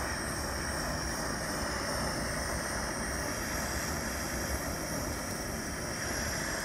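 Handheld torch flame burning with a steady hiss as it is passed over wet acrylic pour paint to bring up cells and lacing.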